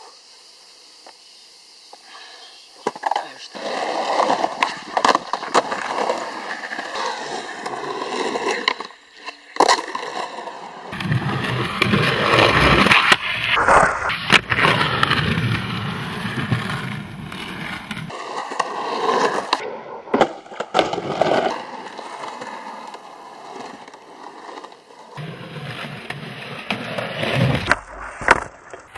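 Skateboard wheels rolling over rough concrete, broken by several sharp clacks of the board popping and landing.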